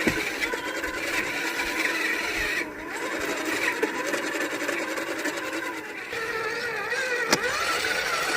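Small electric motor of a battery-powered mini toy pottery wheel running steadily as it spins wet clay, its whine dipping briefly a couple of times under the load of the hands; a sharp click about seven seconds in.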